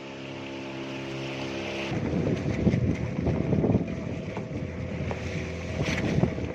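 Motorboat engine running steadily. From about two seconds in, rough rushing wind and water noise takes over.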